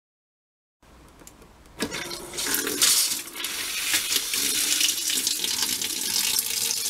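Water from a chrome two-handle faucet on a newly plumbed line starts about a second in. It spits and sputters unevenly at first, typical of air being pushed out of the new lines, then settles into a steady running stream.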